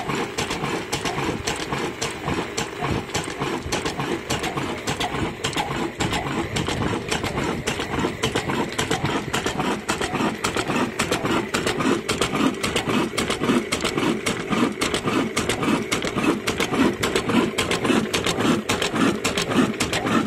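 Old stationary diesel engine with heavy flywheels running at a slow, steady beat with the ticking of its valve and fuel gear. The beat grows a little louder and more distinct in the second half.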